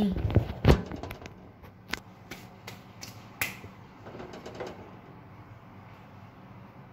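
Two heavy handling thumps against the phone, then a scatter of light clicks and knocks from a tea strainer and kitchen utensils being handled, dying away about five seconds in.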